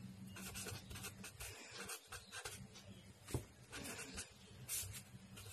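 Marker pen writing on paper: a faint run of short, uneven scratches and squeaks as the letters are drawn, with one sharper tick a little past halfway, over a low steady hum.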